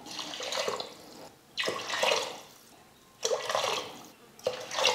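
Water poured from a steel tumbler into a pressure cooker of rice and masala, four pours in a row, each splashing for about a second with short gaps between.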